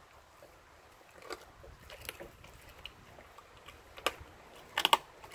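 A Blue Bay Shepherd chewing a raw turkey leg: scattered wet crunches and clicks of teeth on meat and bone, with a quick run of louder crunches near the end.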